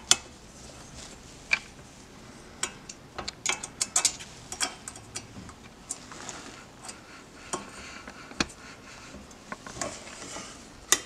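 Scattered small metallic clicks and ticks, irregular and of varying loudness, from a hex key working the end-plate screws on an AR-15 handguard rail and from the rail being handled.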